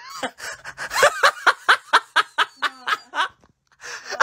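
A person laughing hard in quick, rhythmic bursts, about five a second, breaking off about three and a half seconds in and starting again near the end.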